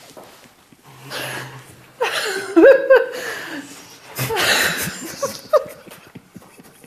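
A man and a woman laughing in several bursts, the loudest about two to three seconds in.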